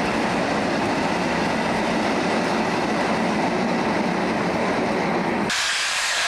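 Tank wagons of a freight train rolling past, a steady rumble of wheels on rail. About five and a half seconds in it cuts abruptly to loud hissing steam from the Bulleid Merchant Navy class steam locomotive 35005 Canadian Pacific.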